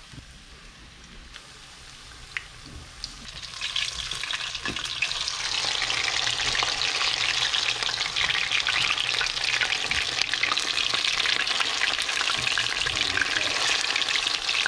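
Beer-battered grouper fingers frying in hot oil in a nonstick pan, with a silicone spatula turning the pieces. The sizzle is soft at first and swells into a loud, steady crackle about four seconds in.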